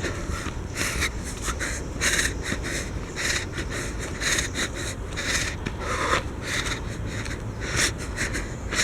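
A person breathing hard while walking at a workout pace: quick, hissy breaths close to the microphone, about two a second, over a low rumble of handling noise.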